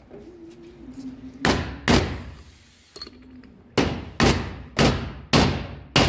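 Hammer striking a bearing race installer to drive a wheel-bearing race (cup) into a rear brake drum hub: sharp metal blows, each ringing briefly. Two strikes come close together, then after a pause five more follow about every half second.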